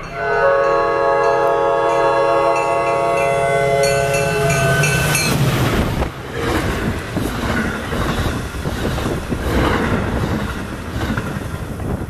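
Commuter rail train horn sounding one long chord of several tones for about five seconds as the train approaches, then cutting off. The bilevel train then rushes past at speed with rail clatter and a rushing roar as it kicks up snow.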